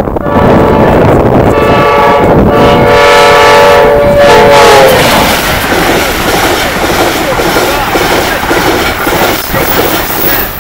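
Amtrak locomotive's Nathan K5LA five-chime air horn sounded in one long blast of about four seconds, its chord dropping in pitch at the end as the train passes. The loud rush of the train speeding by continues after the horn stops.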